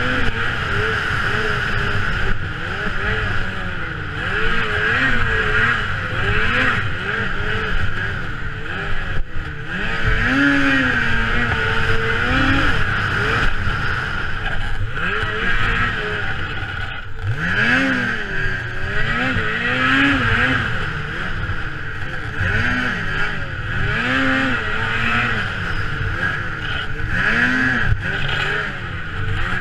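Snowmobile engine at racing speed, heard from the rider's helmet, revving up and falling back again and again as the throttle is worked, over a steady hiss of wind and track noise.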